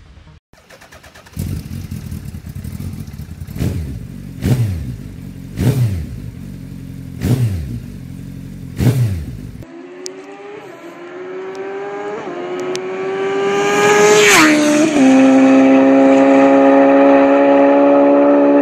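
Suzuki Hayabusa GSX1300R inline-four engine revved in five short blips, each falling away after its peak. Then, after a cut, the bike accelerates up through the gears with a rising note and passes by, its pitch dropping sharply late on before holding a steady note.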